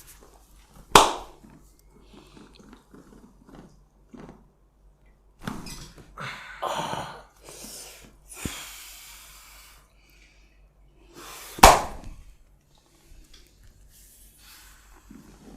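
Two loud hand slaps on skin during a barber's massage, one about a second in and one near the end, with softer rustling of hands on skin and cloth between them.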